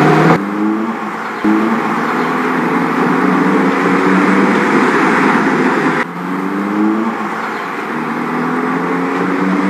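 Car engine accelerating, its pitch climbing in a series of short rises again and again. The sound cuts off abruptly and starts over about six seconds in.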